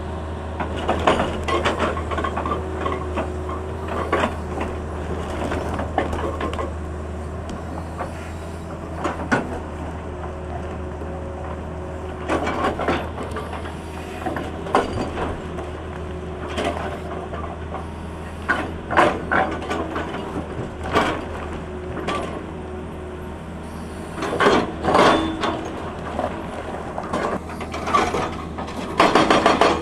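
Tata Hitachi excavator's diesel engine running steadily under load while its hydraulic rock breaker works broken rock, with irregular knocks and clatter of the chisel and stone. Near the end the breaker begins rapid, even hammering.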